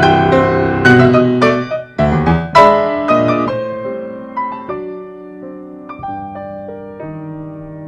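Solo Yamaha grand piano playing a tango: loud struck chords in the first few seconds, then softer, sparser notes left ringing and fading.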